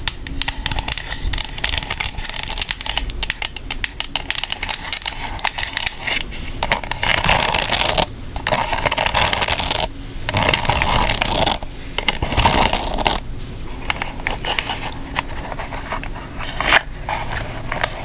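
Long acrylic nails flicking and scratching across the edges of a stack of small paper cards in a plastic holder: rapid clicks throughout, with longer scratchy stretches about halfway through.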